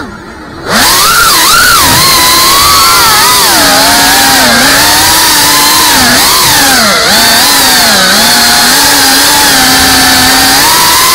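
FPV racing quad's brushless motors whining, the pitch rising and falling constantly with the throttle. At the start the motors are throttled right back for under a second as the quad rolls upside down, then they spin back up.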